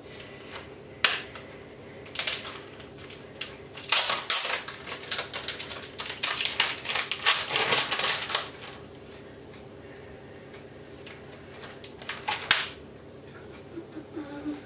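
Plastic packet of sliced ham being pulled open and handled: a dense run of sharp crinkling and crackling from about four to eight seconds in, with a few lone crackles before and after.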